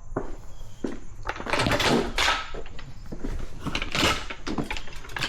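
Vintage push reel mower being handled and rolled by hand, with clunks, knocks and a run of rattling and scraping from its wheels and reel.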